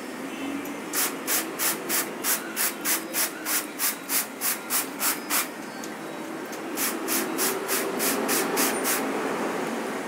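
Quick, even rubbing or scraping strokes, about three a second, in two runs of a few seconds each with a short pause between.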